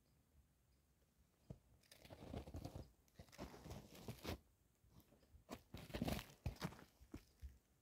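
Footsteps crunching in snow, in irregular bouts of short crunches with brief pauses between them.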